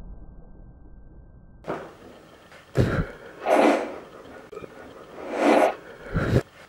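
Compressed-air blow gun fired in short blasts: a sharp burst about a second in, two longer hissing blasts, and another sharp burst near the end.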